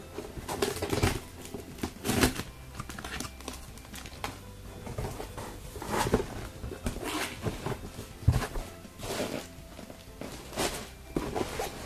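Scissors slitting the packing tape on a cardboard box, then the flaps being pulled open and the contents handled inside: irregular scraping, rustling and cardboard knocks.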